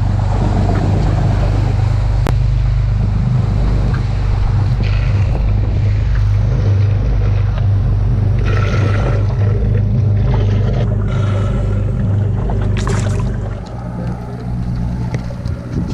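Sportfishing boat's engine running, a steady low drone with water rushing past the hull; the drone drops somewhat in level about 14 seconds in.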